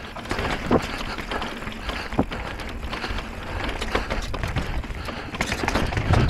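E-mountain bike being ridden: a steady rush of wind and tyre noise with irregular knocks and rattles from the bike, the sharpest about a second in and again about two seconds in, and a run of them near the end.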